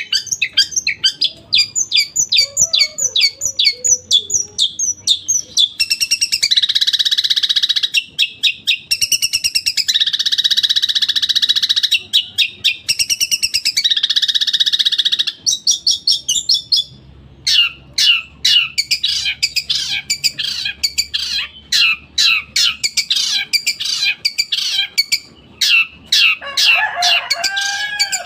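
Long-tailed shrike (cendet) singing: fast strings of sharp repeated notes, broken by three long harsh buzzing rattles about six, nine and thirteen seconds in, then more rapid note volleys and a short tangled warble near the end.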